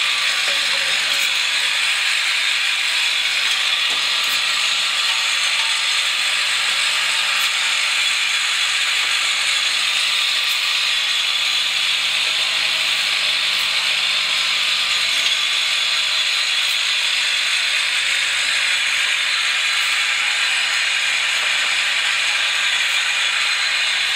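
Four-head flat-bottle filling and capping machine running: a steady, dense mechanical rattle and clatter, with a faint click about every three seconds.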